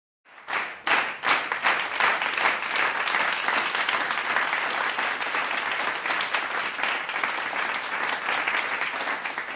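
Applause from a group of people clapping, starting abruptly a moment in with a few separate claps, then steady dense clapping.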